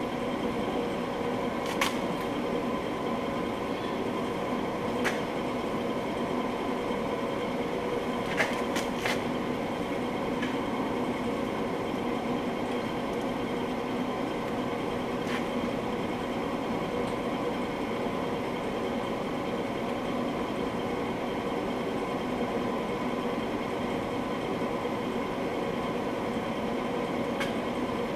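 Steady mechanical hum with a few light, sharp clicks spread through it, from hand tools and a caliper bolt being worked into place.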